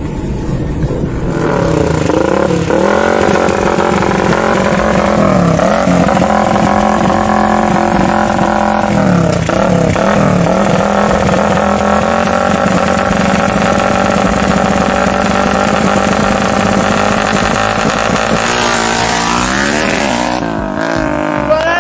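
Motorcycle engine running hard at high revs, its pitch held steady with brief dips and recoveries a few times, then rising and falling near the end.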